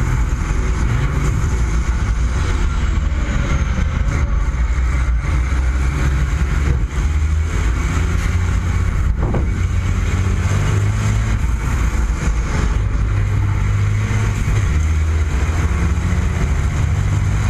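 A MAN race truck's diesel engine running hard under racing load, heard close up from a mount right over the engine. Its deep note shifts up and down several times with the throttle and the gears. There is a brief sharp knock about nine seconds in.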